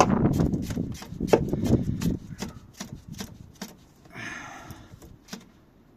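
Handling noise from work on the fuel filter and its hoses and clips: a run of irregular clicks and knocks, busiest in the first two seconds and then sparser, with a brief rustle about four seconds in.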